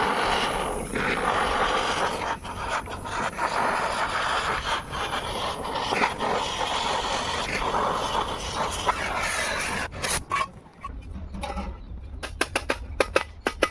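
Electric arc welding on a clutch plate, a dense steady crackle that cuts off suddenly about ten seconds in. Sharp separate clicks and taps follow near the end over a low hum.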